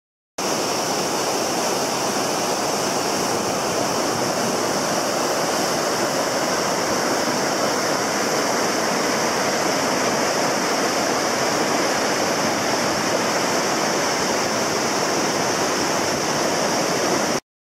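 Steady rushing of a muddy glacial river, an even unbroken roar of water that starts and cuts off abruptly.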